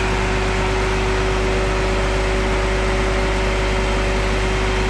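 Truck engine running steadily at idle with a constant hum, the engine of the crane truck loading the lathe.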